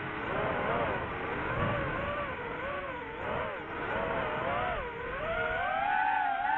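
DJI FPV drone's motors and propellers whining, the pitch wavering up and down with the throttle and climbing steadily near the end.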